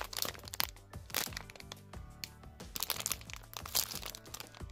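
A clear plastic packaging bag crinkling and crackling in the hands in many short bursts as it is handled, over soft background music.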